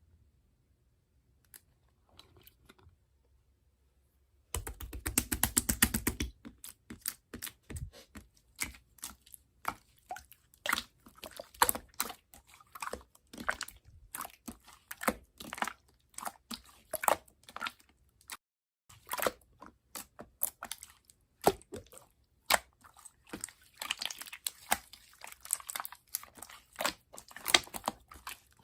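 Near silence, then from about four and a half seconds in a long run of irregular sharp clicks and crunches, several a second with louder ones about once a second, starting with a brief denser rustle.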